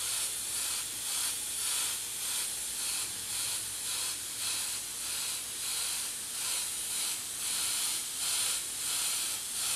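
Airbrush spraying, a steady high hiss of air and paint that swells and eases a bit more than once a second as it mists a thin coat of transparent paint.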